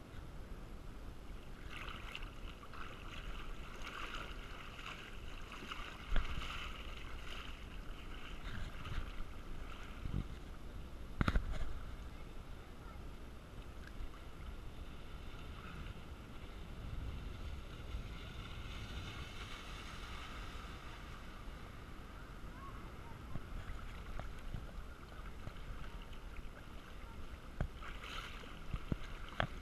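Shallow lagoon water lapping and sloshing against a GoPro's waterproof housing at the surface, a steady wash with a couple of sharp knocks against the case.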